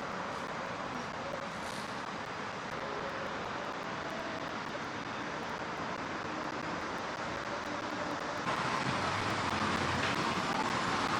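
Steady outdoor street noise of vehicle traffic, turning suddenly louder and fuller about eight and a half seconds in.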